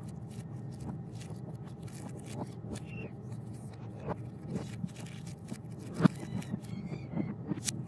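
Small plastic packaging being handled: a clear zip-lock bag and card crinkling and rustling in the hands, with scattered clicks and one sharp knock about six seconds in.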